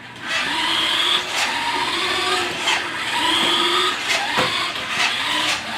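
Remote-control toy car's small electric motor whining, its pitch rising and falling in a string of runs as it speeds up and slows, with wheel scrub and a few sharp clicks between runs.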